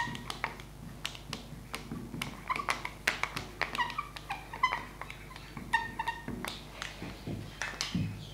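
Marker pen squeaking and tapping on a glass lightboard as words are written: many short, high squeaks mixed with light clicks of the tip on the glass.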